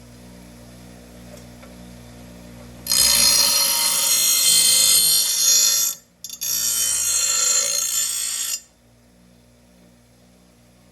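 Power grinder grinding the steel edge of a lawn mower blade: two loud, harsh grinding passes, about three seconds and two seconds long, with a short break between them, over a steady low hum.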